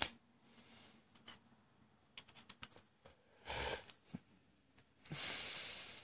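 Small plastic clicks and scraping from a glued plastic adapter housing being pried at by hand, with two longer rushes of noise, the louder one near the end.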